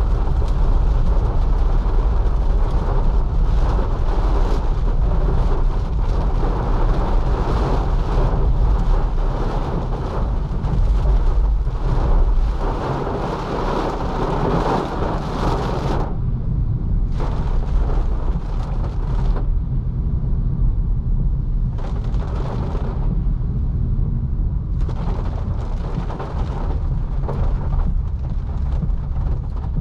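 2022 Nissan Leaf electric car driving through heavy rain, heard from inside the cabin: a steady low rumble from the tyres and road, with the hiss of rain on the roof and windshield. The rain hiss thins out about halfway through, then comes back in several short surges.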